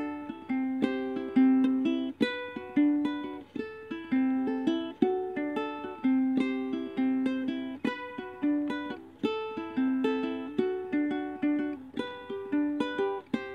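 Background music: a melody of plucked string notes.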